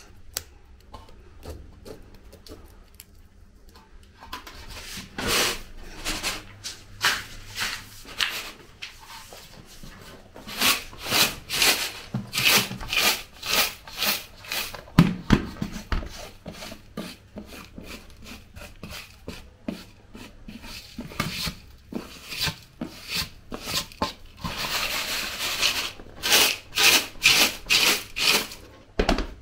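Pounded, roasted cocoa beans rattling and swishing in a large aluminium tray as it is tossed to winnow off the loose shells. The swishes repeat about twice a second, starting a few seconds in.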